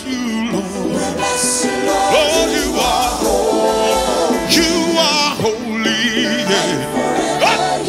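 Live gospel worship music: a band with drums, bass guitar, electric guitars and keyboard playing on, with singers' voices over it.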